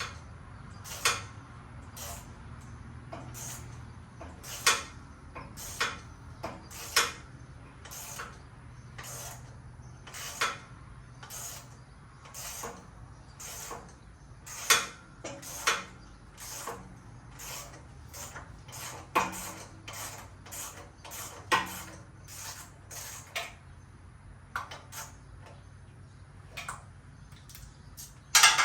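Irregular metallic clicks and knocks, roughly one or two a second, from hand tools working the top nut of a strut held in a spring compressor, over a low steady hum.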